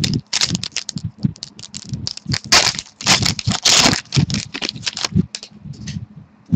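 Hockey trading cards and their pack wrapper being handled up close: a quick run of crinkles, scrapes and small taps as a pack is opened and the cards are slid out and sorted.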